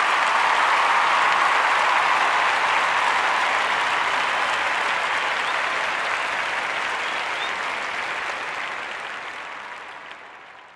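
Crowd applauding, a steady patter of clapping that slowly fades out over the last few seconds.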